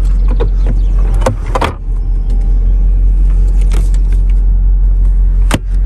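BMW X5 E53's V8 engine idling steadily. Over it come rattling knocks about a second in and a sharp click near the end, as the cargo-area floor and trim panels are handled.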